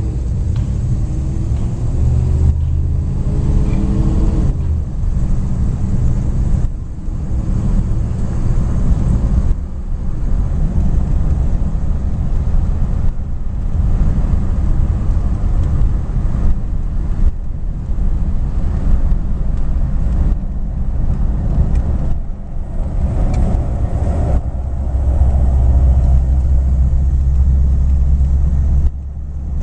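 1953 Cadillac Series 62's V8 engine and road noise, heard from inside the car while driving, with its dual-range Hydra-Matic automatic. The engine pitch rises over the first few seconds as the car accelerates, and the low rumble swells louder near the end.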